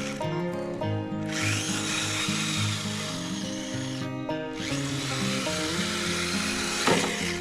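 Electric motor and gear drive of a Kyosho Blizzard 2.0 RC snowcat whining as it drives, the pitch shifting in steps, with a brief louder sweep near the end.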